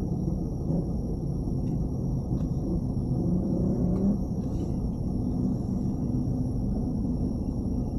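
Steady low rumble inside a car's cabin: the engine running and the tyres rolling as the car creeps along in slow traffic.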